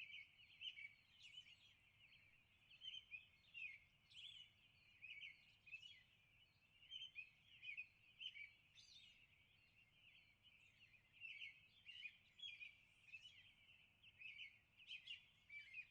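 A faint chorus of small birds chirping, many short overlapping calls with no break.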